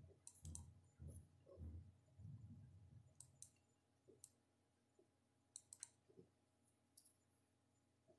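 Computer mouse clicking: faint, scattered clicks, several in quick pairs, with soft low bumps during the first couple of seconds.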